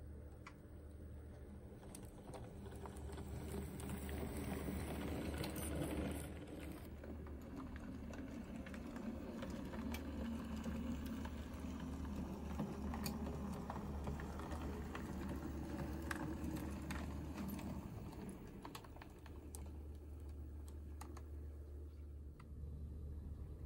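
OO gauge model steam locomotive running along the track: its small electric motor and gears whirring, with a scatter of small clicks from the wheels on the rails over a steady low hum, growing louder as it passes close.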